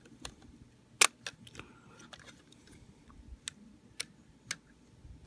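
Plastic parts of a transforming robot toy clicking as they are handled and pegged together: a scatter of sharp, separate clicks, the loudest about a second in.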